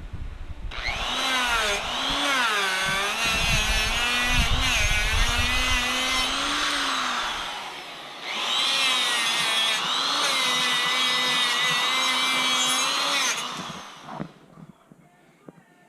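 A high-speed handheld electric power tool running in two long runs, its whine wavering and dipping in pitch as it is loaded.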